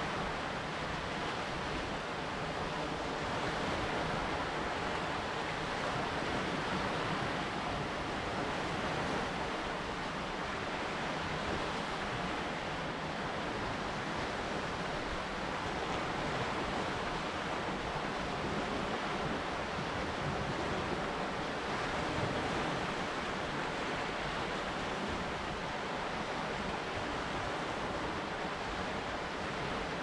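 Lake Superior waves washing against a rocky shoreline in a steady surf wash that swells and eases gently, with wind blowing.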